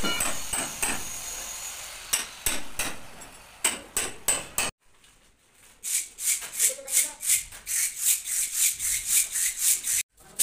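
Mason's hand tools working brick and mortar: sharp taps and scrapes, scattered at first, then after a short pause a steady run of quick strokes, about three or four a second.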